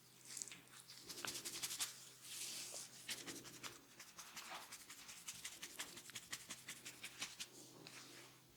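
Fingers rubbing and scratching through hair and scalp, a faint, close crackle of many fine clicks with brief rubbing hiss.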